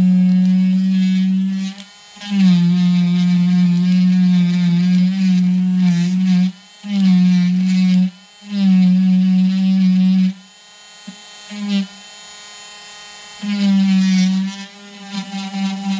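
Handheld rotary tool whining as its bit carves deadwood (a shari) into a shimpaku juniper bonsai trunk. It is switched on and off in runs of one to four seconds with short gaps, with only brief blips in a pause near the middle, and its pitch shifts slightly as the bit bites into the wood.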